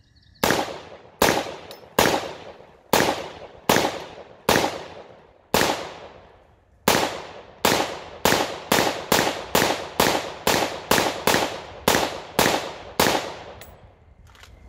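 About twenty semi-automatic rifle shots from an AR-15 firing 5.56/.223, each sharp crack followed by a short fading echo. The first few come about one a second, then from about halfway through the pace quickens to about two a second until the 20-round magazine is empty.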